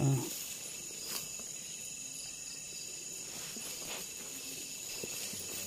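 Night insects, crickets by the sound of it, trilling steadily in a high-pitched chorus, with a few faint scattered clicks over it.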